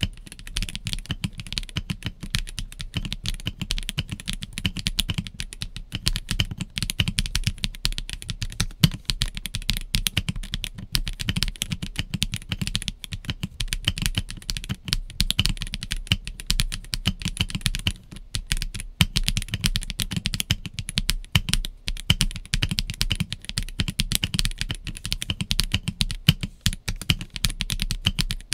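Continuous fast typing on a stock Kit Adam R2 Lego-brick mechanical keyboard with sound dampening, S² linear switches and OEM-profile PBT keycaps: a steady stream of key presses and clacks.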